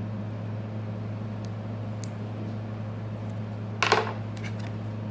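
Small hard tools or phone parts clicking and clattering on a workbench during a phone repair, with one brief clatter about four seconds in and a few light clicks, over a steady low hum.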